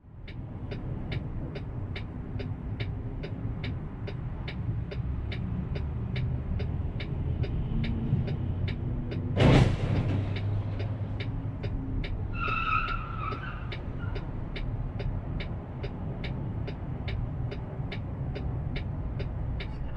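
Vehicle running, heard from inside its cab: a steady low engine and road rumble with a fast, even ticking about two and a half times a second. A sudden loud bang comes about halfway through, and a brief pitched tone a few seconds later.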